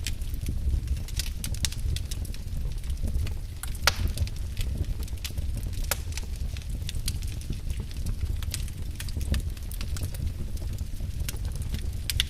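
Wood fire crackling in a fireplace: irregular sharp snaps and pops over a steady low rumble of the flames, with a couple of louder pops.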